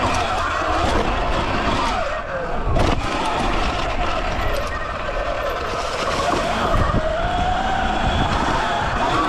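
Sur-Ron electric dirt bike's motor whining, its pitch rising and falling with the throttle, over a steady rushing noise, with one sharp knock about three seconds in.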